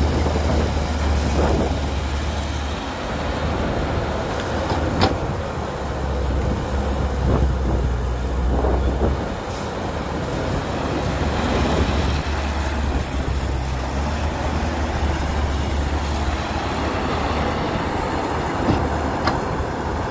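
Diesel engine of a Caterpillar hydraulic excavator running under load as it dumps soil into a dump truck and digs, its low rumble swelling and easing with the work, with a couple of sharp knocks.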